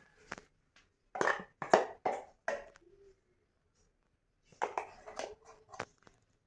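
Hand squeezing and mixing ground dal paste with sliced onions in a steel bowl: short noisy strokes in two groups, one about a second in and another near the end, with a quiet pause between.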